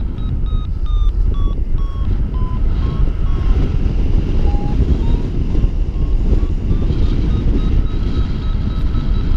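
Paragliding variometer beeping over heavy wind noise buffeting the microphone. The short beeps fall in pitch to a low point about halfway through, then rise again and settle at about three beeps a second; the vario's pitch follows the glider's rate of climb.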